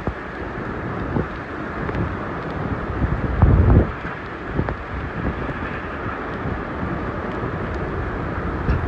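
Hurricane-force wind gusting hard, buffeting the microphone, with wind-driven heavy rain. The strongest gust swells up about three and a half seconds in.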